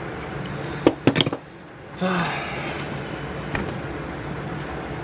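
A quick cluster of sharp knocks about a second in, from tools working on a two-stroke ATV engine during teardown, over a steady low background hum.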